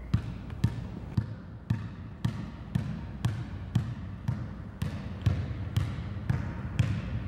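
Basketball being dribbled hard on a hardwood gym floor: a steady run of bounces, about two a second.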